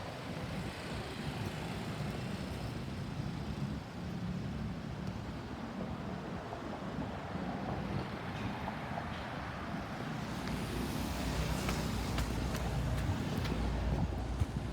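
Road traffic noise: vehicle engines and tyres passing, a little louder in the last few seconds. No siren is heard.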